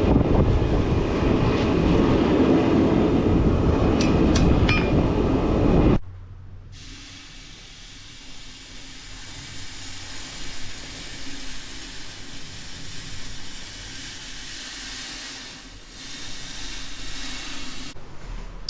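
Forge running with a loud steady roar, with a few metal clinks about four seconds in. About six seconds in it cuts suddenly to a much quieter steady hiss with a faint hum.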